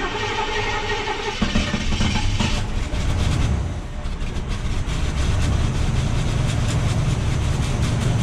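A 1987 Chevrolet El Camino's engine heard from its tailpipe, just started and idling. For the first second or so a steady tone sits over the exhaust note; after that it settles into an uneven, low exhaust rumble.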